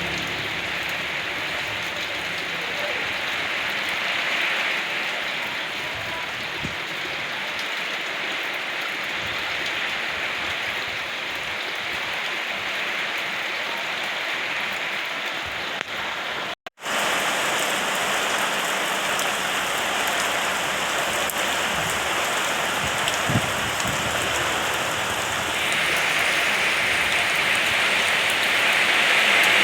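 Steady rain falling, an even hiss, with a split-second break about two-thirds of the way through; it grows louder and heavier near the end.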